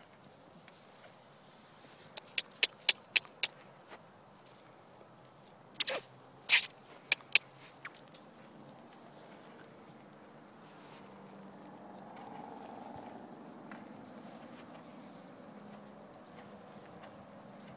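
Insects, crickets by their sound, keeping up a steady high drone. About two seconds in comes a quick run of five sharp clicks, and around six seconds in a few louder sharp clicks.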